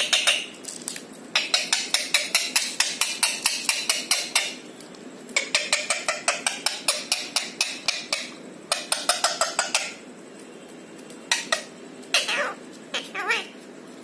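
A green rose-ringed parakeet making rapid sharp clicks, about eight a second, in several bursts of one to three seconds each, with a few short calls near the end.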